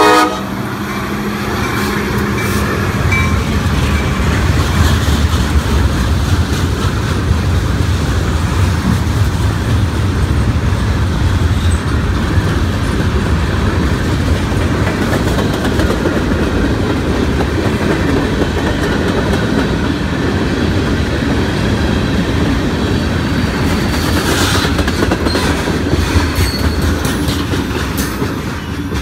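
CSX freight train of tank cars rolling past: a steady rumble of wheels on rail with clicking over the rail joints. A locomotive horn cuts off right at the start, and sharper metallic clanks come about 25 seconds in.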